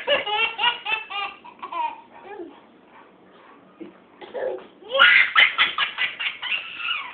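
Young child laughing in short rapid bursts: one bout at the start, then a louder bout from about five seconds in.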